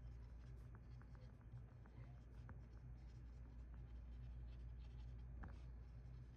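Soft, irregular keystrokes of typing on a computer keyboard, over a steady low hum.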